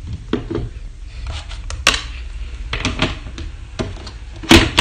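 Hard plastic clicks and knocks as baby feeding bottles are handled and set down in a plastic storage box and the box's plastic lid is put on, with the loudest clack near the end.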